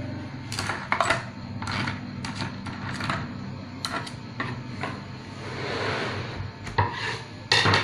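Irregular sharp clicks and taps of metal on metal as a screwdriver pokes among small rusty sewing-machine bolts and parts soaking in citric acid solution in a plastic container, with a short softer rustle about six seconds in.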